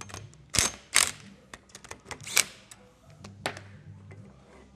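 Sharp metallic clicks and clunks of a cordless drill and shock absorber parts being handled and set down on a metal workbench beside a bench vise, a handful of separate knocks with the loudest about a second in.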